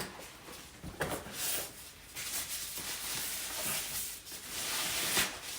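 Rustling and light knocks of packaging being handled as items are taken out of a box, with a short knock about a second in and a longer stretch of rustling after it.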